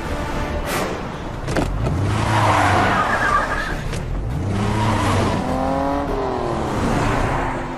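Car engines revving hard as cars speed past in a chase, their pitch sweeping up and back down twice, with tyre squeal. Two short, sharp knocks come in the first two seconds.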